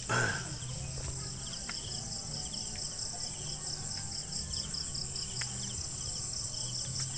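Chorus of crickets and other insects: a steady, high, rapidly pulsing trill, with shorter chirping trills from other insects coming and going.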